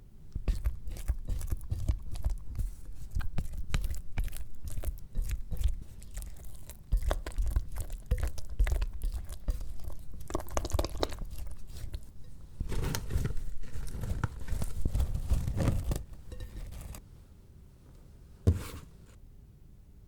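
Wet, sticky no-knead focaccia dough being mixed in a bowl: a busy run of irregular sticky clicks and scrapes that stops about sixteen seconds in. A single sharp knock comes near the end.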